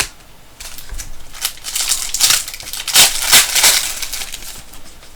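Crinkling and crumpling of a foil trading-card pack wrapper as it is handled and torn open, in a dense crackly run that peaks about three seconds in, after a single click at the start.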